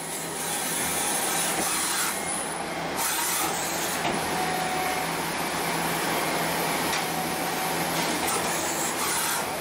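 CNC lathe turning a brass bar under flood coolant: a steady rushing hiss of coolant spray and cutting over the low hum of the running machine.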